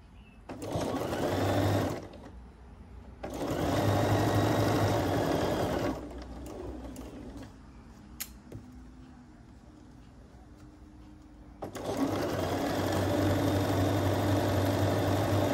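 Bernina B 770 Quilter's Edition Plus sewing machine stitching a seam in three runs: a short one near the start, a longer one of about three seconds, and another of about four seconds to the end. In the pause between runs there is a single sharp click.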